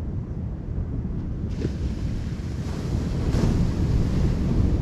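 Surf washing onto a sandy beach, the hiss of the waves swelling twice, with steady wind noise on the microphone.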